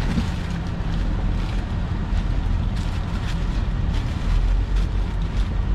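Van driving, heard inside the cabin: a steady low rumble of road and engine noise with a few faint clicks or rattles.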